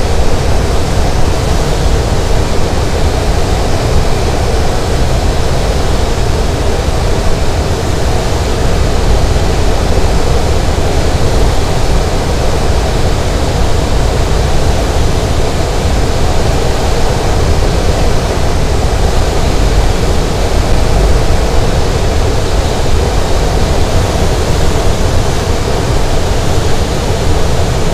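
Steady loud rush of airflow and drone in a two-seat glider's cockpit while it is towed aloft behind a tow plane, an even noise, heaviest low down, that does not change.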